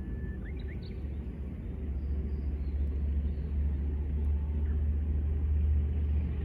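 Steady low rumble that grows louder from about two seconds in. A faint Japanese bush warbler song sounds at the start, a held whistle followed by a few quick notes.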